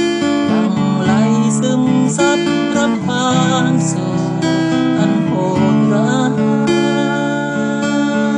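Acoustic guitar strummed steadily, chord after chord, in an instrumental passage of a song.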